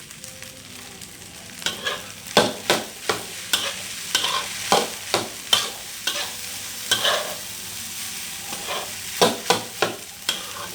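Fried rice sizzling in a hot pan while a utensil scrapes and turns it, in quick repeated strokes that start about two seconds in, pause briefly, then resume.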